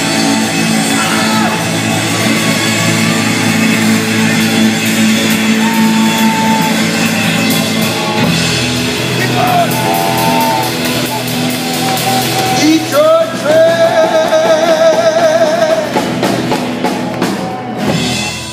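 Live band playing an upbeat rock tune on acoustic and electric guitars, upright bass and drum kit, with a wooden train whistle blown into a vocal microphone over it. The whistle's wavering chord is loudest about two-thirds of the way through, and the band stops right at the end.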